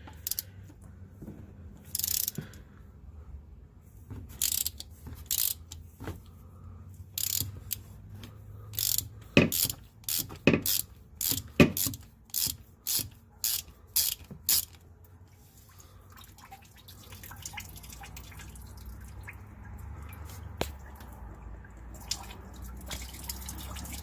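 A ratchet wrench working in a series of short clicking strokes, about one or two a second, which stop about fifteen seconds in. Coolant is dripping and trickling into a catch bucket while the engine's coolant temperature sensor is out, and the trickle grows steadier near the end.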